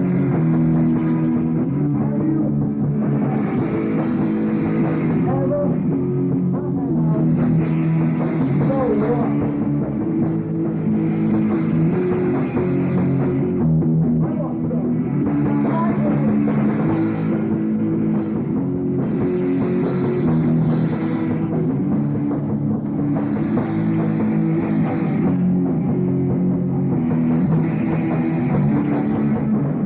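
Rock band playing live: an instrumental stretch of guitar and drums, with no singing.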